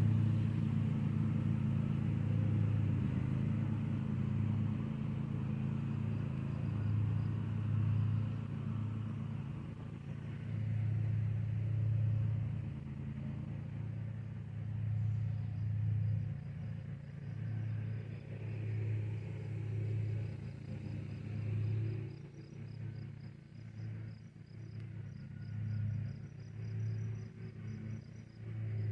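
Zero-turn lawn mower engine running at a distance, a steady low drone that swells and fades every couple of seconds as the mower moves across the lawn.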